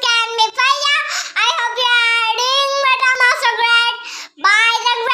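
A young girl singing in a high voice, holding long notes with short breaks between phrases.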